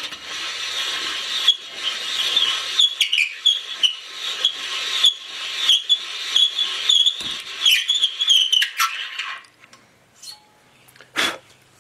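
A 60-degree Neway valve seat cutter scraping and squeaking as it is turned on a new hardened valve seat, cutting the first angle of a three-angle valve job. The cutting stops about nine and a half seconds in, and a single sharp knock follows near the end.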